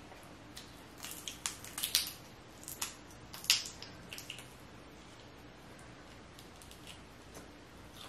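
Boiled crawfish being cracked and peeled by hand: a scatter of sharp, wet cracks and clicks over the first four seconds or so.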